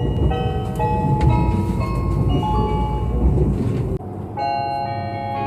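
Meitetsu train onboard chime playing a melody of short electronic bell-like notes over the low rumble of the running train. About four seconds in, the rumble cuts off and a different chime melody begins.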